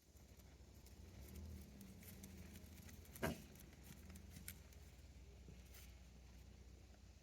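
Goat chewing its cud: faint scattered chewing clicks over a low rumble, with one sharper knock about three seconds in.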